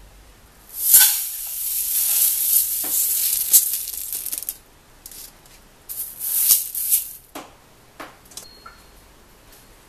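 Dry-sounding azuki beans poured from a mesh strainer into an earthenware donabe pot: a rattling rush of beans for about three and a half seconds, then a shorter second burst of rattling and a few light clicks near the end.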